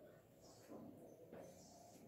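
Chalk drawing on a blackboard: a few faint, short scratching strokes.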